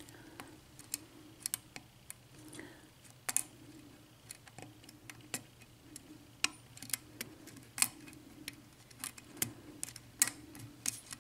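Small lock pick working the pin stacks of a 6-pin ERA euro cylinder: light, irregular metallic clicks and ticks, more than a dozen, as pins are lifted and set under tension, with the lock in a false set.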